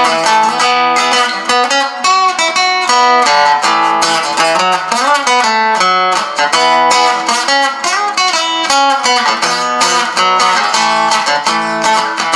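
Madera acoustic guitar fitted with a pickup and preamp, played through an amplifier on a clean setting with reverb: a continuous run of picked and strummed chords and single notes, with a few bent notes partway through.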